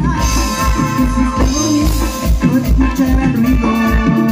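Live grupero band playing a song section without vocals: electronic keyboard melody over bass and drums with a steady beat.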